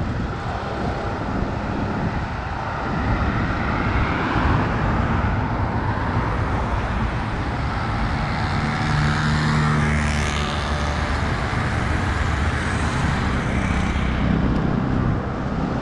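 City road traffic: a steady rumble of engines and tyres, with a vehicle going by about two-thirds of the way through.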